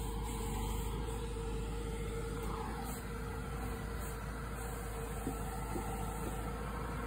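Spedo Fruipick tree shaker running steadily, a constant hum over a low rumble, as its clamp grips and shakes a walnut tree trunk. A few light knocks come about five to six seconds in.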